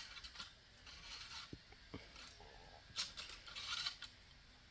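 Long-handled lawn shears snipping grass, a few short, faint cuts at uneven intervals.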